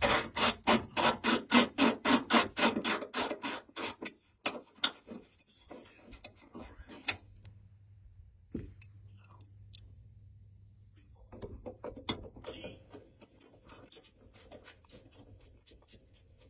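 Hand socket ratchet clicking rapidly, about five clicks a second, as a bolt is turned at the hood hinge. This is followed by scattered clicks and handling of small metal parts, and a second, fainter run of ratchet clicks near the end.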